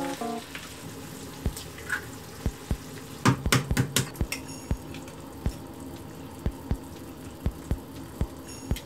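A raw egg's shell cracked against the rim of a bowl: a quick cluster of sharp clicks about three seconds in. Underneath is a soft, evenly paced thump of background music, with faint sizzling of chicken in sauce in the frying pan at the start.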